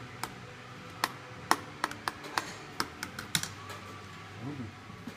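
Metal spoon clinking against the inside of a glass jug while stirring liquid: a quick, irregular series of sharp clicks that stops about three and a half seconds in.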